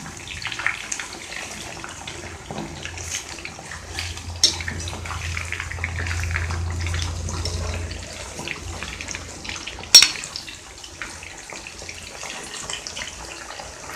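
Chicken pieces deep-frying in hot oil in an iron kadai: a steady bubbling sizzle with small crackles, and one sharp click about ten seconds in.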